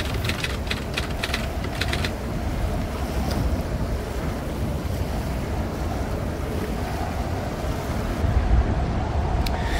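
Strong wind buffeting the microphone over small waves breaking on the shore, gusting louder about eight seconds in. A quick run of typewriter-like clicks comes in the first two seconds.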